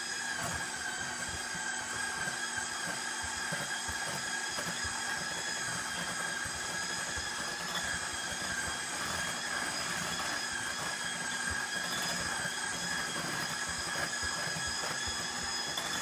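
Electric hand mixer running at a steady speed, its beaters churning thick avocado and cocoa pudding in a glass Pyrex bowl; an even motor whine throughout.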